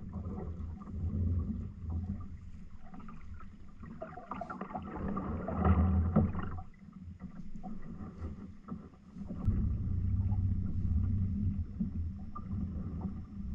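Low rumble of water and movement around a kayak at anchor. From about four to six and a half seconds there is louder scratchy handling noise as a small squid is worked onto a fishing hook.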